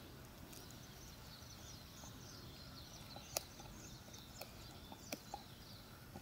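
Golden retriever puppy gnawing a dog bone: sparse sharp clicks of teeth on bone, the loudest about three and a half seconds in. Faint high chirping sounds in the background.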